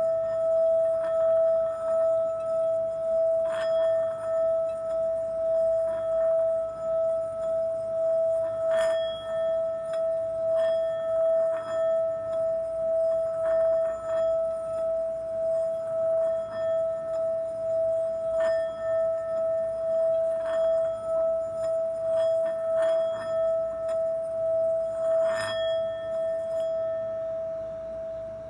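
Singing bowl held ringing in one steady hum with a pulsing waver, as if sustained by a mallet around its rim, with a light click every few seconds. The hum starts to fade near the end.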